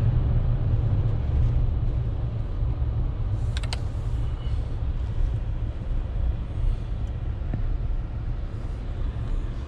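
Low, steady road and engine rumble heard inside a moving vehicle's cabin, with a couple of light clicks about three and a half seconds in.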